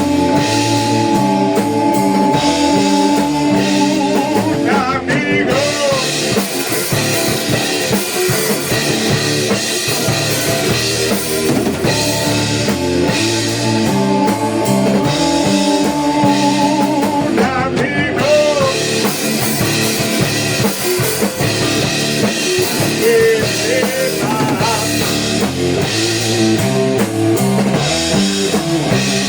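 A rock band playing a heavy rock song: drum kit, electric guitars and bass together. Guitar notes are held out in two long stretches, with wavering bent notes in between.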